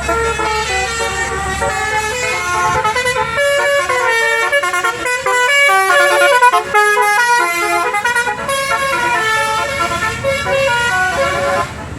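Bus telolet basuri horn playing a fast tune, several horn tones sounding together and stepping quickly from note to note, with a brief break near the end.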